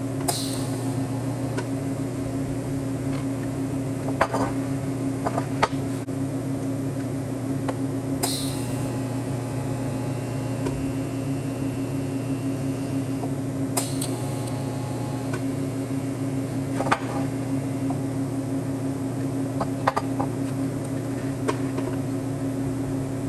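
Steady electrical hum from shop equipment, with scattered light clicks and a few brief high-pitched hisses.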